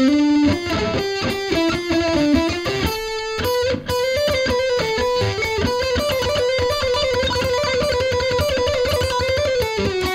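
Line 6 Variax electric guitar played through an amplifier set for heavy-metal distortion. A fast picked riff gives way, about four seconds in, to one high note picked rapidly over and over for most of the rest.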